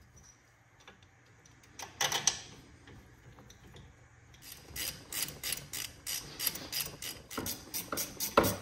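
Ratchet wrench clicking in a fast, even run as the brake caliper's mounting bolts are run down, starting about halfway in, after a couple of metal clinks of tools.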